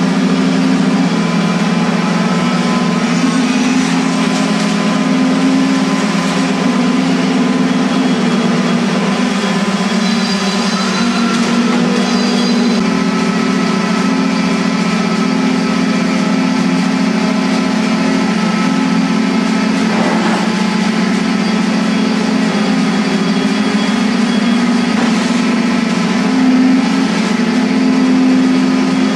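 A loud, steady engine drone with little change in pitch.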